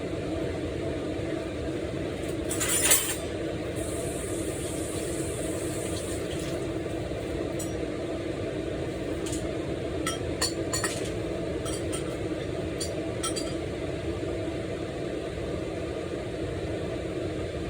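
Kitchen dishes and utensils clinking: one louder clatter about three seconds in, then a run of light clinks and taps, over a steady background hum.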